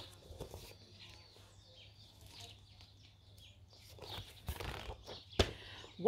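Pages of a large picture book being turned and handled: soft paper rustles with a sharp tap a little before the end, over a quiet outdoor background.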